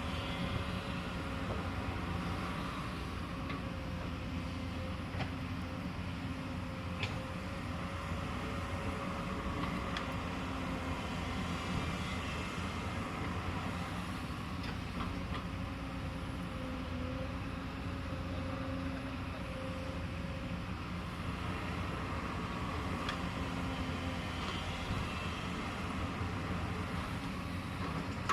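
Excavator's diesel engine running steadily with a constant hum, with a few faint clicks and knocks.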